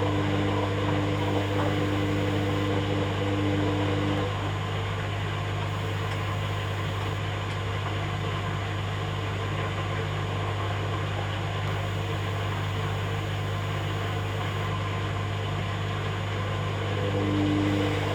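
Hoover Dynamic Next washing machine running through its rinse-and-spin programme: a steady low mechanical hum. A higher steady tone over it cuts out about four seconds in and comes back near the end.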